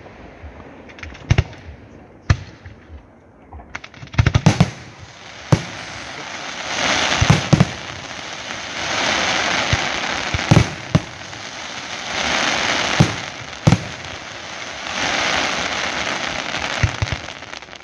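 Aerial firework shells bursting: a string of sharp bangs, then from about six seconds in several long stretches of dense crackling from crackling stars, with more bangs between them.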